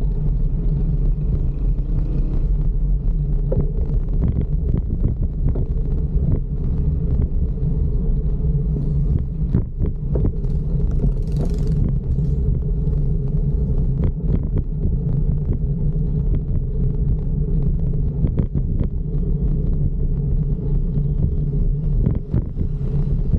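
Steady low rumble of wind and road noise on the camera while riding a fixed-gear bicycle, with scattered small clicks and knocks from bumps in the road. A short hiss comes about eleven seconds in.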